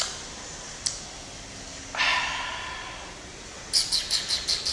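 Mouth sounds of a person eating grapes: a short, sharp breath through the nose about two seconds in, then a quick run of wet smacking clicks from chewing near the end. There are also a couple of single mouth clicks earlier.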